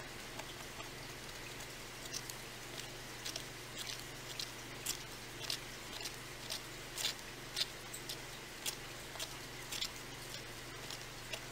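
Stir stick clicking and tapping against the sides of a mixing cup as tinted casting resin is stirred, in irregular strokes about one or two a second, loudest midway, over a low steady hum.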